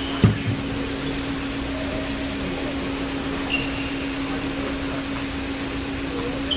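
Steady hum and air noise of an indoor tennis hall's ventilation, with a single sharp thump just after the start and a brief high squeak about three and a half seconds in.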